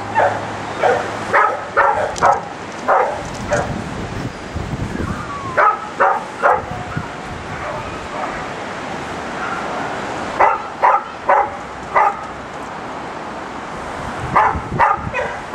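A dog barking in quick runs of short yaps, several barks at a time, with pauses of a few seconds between the runs.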